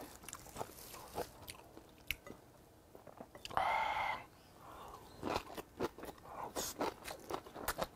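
Close-miked chewing of straw-fire-grilled hagfish (kkomjangeo): soft wet clicks and smacks from the mouth, more frequent in the second half. A short humming sound about halfway through.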